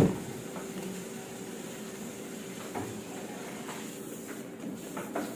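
A single sharp knock, then a steady low hum with a couple of faint clicks, like household noise in a kitchen.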